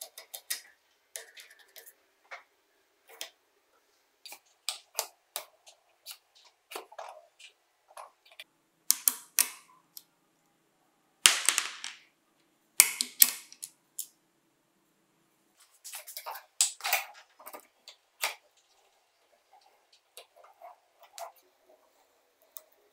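Metal clicks and clanks from a steel jaw-type bearing puller in a bench vise being set and worked on an impact driver's hammer-and-bearing assembly: scattered light ticks, with several sharp louder snaps around the middle.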